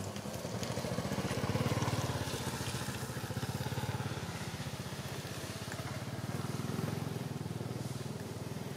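A small engine running steadily, its low pulsing hum swelling twice, about two seconds in and again near seven seconds.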